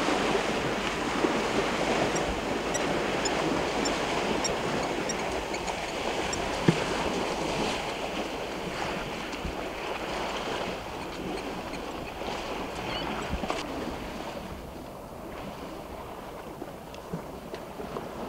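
Elephants splashing and wading in a waterhole, a steady rushing and churning of water mixed with wind, growing fainter over the last few seconds.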